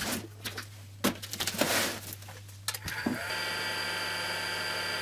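Cardboard box being handled, with knocks, clicks and a louder scrape about a second and a half in. About three seconds in, a heat gun switches on and runs with a steady rushing noise, heating the box to soften the headlight's lens sealant.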